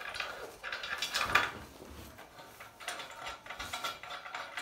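Small metal clicking and rattling as nuts and washers are screwed by hand onto the threaded studs of a sewing machine table's metal mounting plate.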